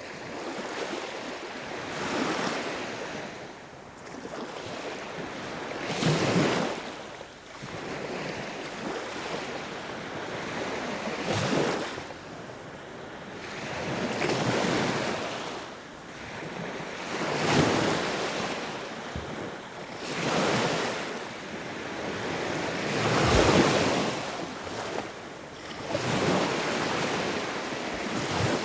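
Sea waves breaking and washing ashore, the sound swelling and falling away again about every three seconds, a few surges louder than the rest.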